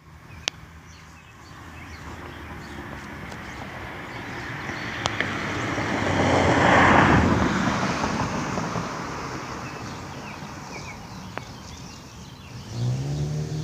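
A vehicle driving past: its noise swells to a peak about halfway through and then fades away. A low pitched sound begins near the end.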